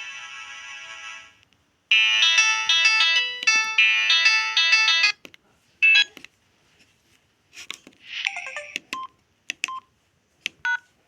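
Samsung SGH-M610 mobile phone playing its ringtones through its small speaker: a melody fading out, then after a brief gap a busy electronic tune of about three seconds, then several short chiming alert tones spaced a second or two apart.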